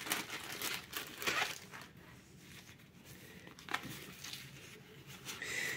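Thin clear plastic bag crinkling in a few brief, faint rustles as a black nylon walkie-talkie holster is slid out of it and handled.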